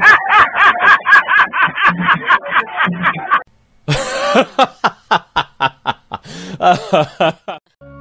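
Hearty human laughter in rapid repeated bursts, breaking off suddenly about three and a half seconds in, then after a short gap another run of fast, breathy laughter.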